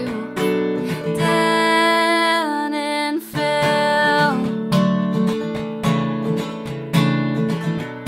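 Background music: a song with strummed acoustic guitar, with one long held note from about one to three seconds in that slides down in pitch at its end.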